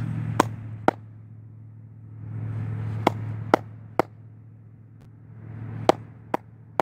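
Hand claps: sharp single claps in short groups of two or three, about half a second apart, over a steady low hum.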